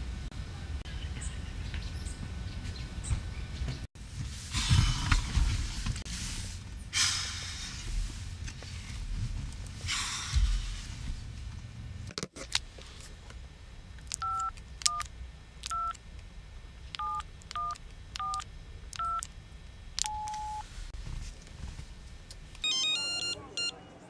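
Phone keypad being dialed: a string of about eight short two-tone DTMF beeps at an uneven pace, followed by one longer steady tone. Before the dialing there are several loud swells of rushing, whooshing noise.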